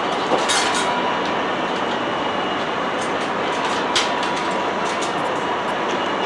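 EF71 electric locomotive standing at the platform, its running equipment making a steady noise with a thin steady whine. A few sharp clicks come about half a second in and again at four seconds.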